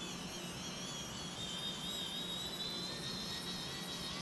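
High-pitched electronic whine from a powered-up Cinelog 35 FPV cinewhoop drone, wavering in pitch at first and then holding steady, over a faint hiss.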